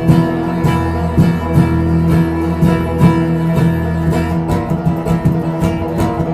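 Bluegrass band playing without vocals: picked acoustic guitar and banjo with held chords over a low bass, the bass dropping away about four seconds in.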